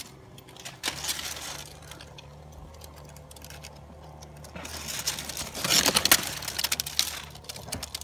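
Dry palm fronds and twigs crackling and rustling as they are handled and pushed aside around a dove's nest, in bursts of sharp clicks, with the densest crackling in the second half. A faint steady low hum runs underneath.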